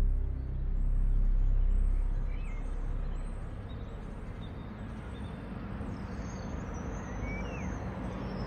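Film score fading out in the first two seconds, leaving steady outdoor background noise with a few short bird chirps.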